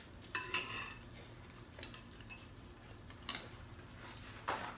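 Chopsticks and spoons clinking against ceramic bowls while noodle soup is eaten. There is a ringing clink about half a second in, then a few lighter taps, and a short rasping noise near the end.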